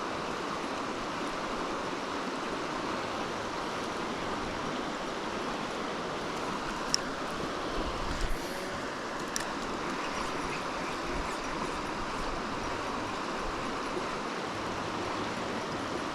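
Creek water running over riffles, a steady rushing. A sharp click about seven seconds in, a low bump just after and another click a couple of seconds later.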